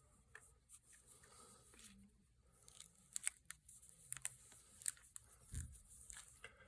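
Faint, scattered clicks and soft taps of fingertips pressing a replacement back glass panel down onto its adhesive around the edges of a Samsung Galaxy S20 Plus, seating the glass. The clicks come thicker from about three seconds in, with one soft low thump.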